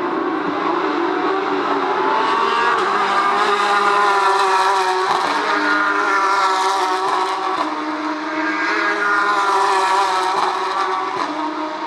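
Several Porsche 911 GT3 Cup race cars' flat-six engines at racing revs, passing and accelerating in a pack, the pitch climbing and dropping as they work through the gears.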